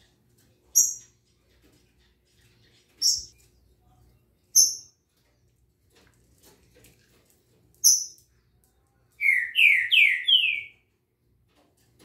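Caged songbirds calling: four short, high single call notes a second or more apart, then near the end a quick phrase of four rising slurred whistles, lower in pitch.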